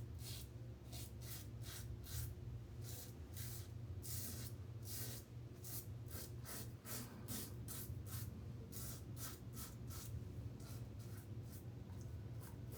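Pearl Hammer safety razor scraping stubble in short, quick strokes against the grain: a rapid run of crisp scratches, about two to three a second, over a steady low hum.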